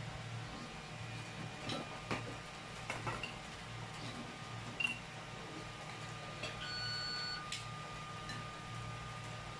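Scattered light clicks and knocks of plates, dishes and food being handled at a meal, over a steady low hum. A short faint high tone sounds past the middle.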